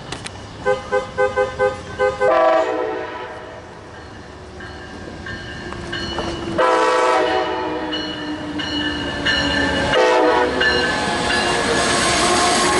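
Amtrak passenger train's locomotive horn: a quick run of short toots, then three long blasts, while the train rolls into the station with its running noise growing louder near the end.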